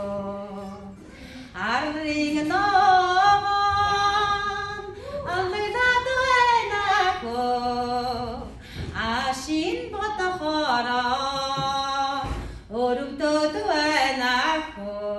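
A woman singing solo into a microphone, in long phrases of held notes that bend and waver in pitch, with short pauses between the phrases.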